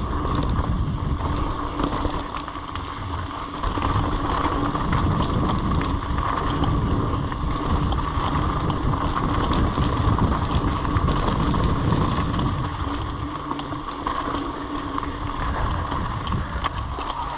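Mountain bike riding down a dirt trail: wind buffeting the microphone and the bike rattling over the ground, over a steady high hum. The rumble eases briefly near the end.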